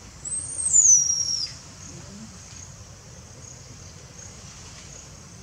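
One loud, high-pitched animal call lasting about a second. It rises briefly, then glides down in pitch. A faint, steady chirring of insects runs underneath.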